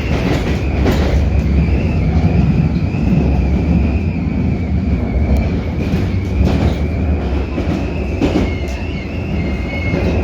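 Metropolitan line S8 Stock train running, heard from inside the carriage: a low, steady running rumble with a thin, high-pitched whistle held at one pitch throughout, and a few sharp clicks from the wheels and track.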